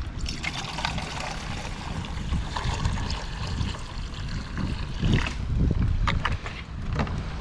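Water being poured into a pot over a campfire for tea: a steady splashing hiss that stops about five seconds in, followed by a few sharp ticks. Wind rumbles on the microphone throughout.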